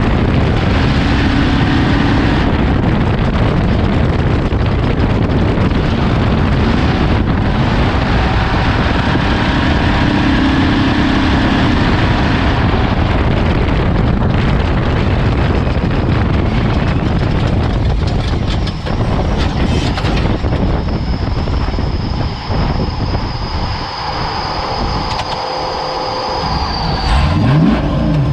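Off-road race vehicle driven hard: a loud, dense mix of engine and rough-terrain noise that eases a little past the middle, with the engine revving up near the end.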